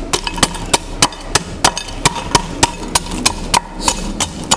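A wooden ladle pounding and crushing Oreo cookie wafers in a glass dish: steady sharp knocks, about three a second.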